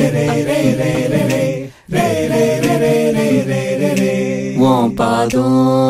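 Tamil song with a singing voice holding long, drawn-out notes, breaking off briefly about two seconds in and sliding upward in pitch near the end.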